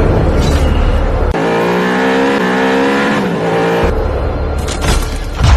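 Car engine sound: a heavy low rumble that gives way about a second in to a steady, high engine note holding and shifting pitch, then the rumble again near the end.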